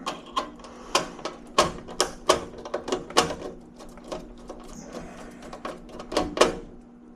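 Irregular small clicks and taps, two or three a second, from hand tools and thermostat wire being worked onto the terminals of a furnace control board, over a faint steady hum. The clicking stops shortly before the end.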